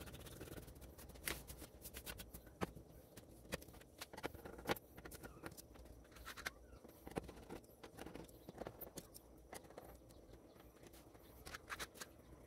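Faint, irregular clicks and taps of a hand tool and small parts on the metal back of a flat-panel TV being taken apart.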